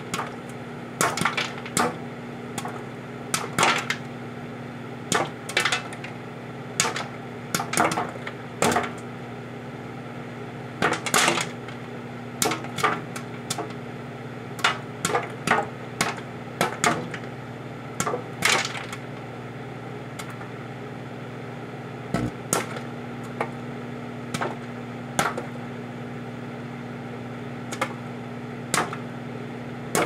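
Jiffy Pop popcorn kernels popping in their aluminium pan inside a running microwave oven: scattered sharp pops, often in quick pairs or threes, a few every couple of seconds, over the oven's steady hum.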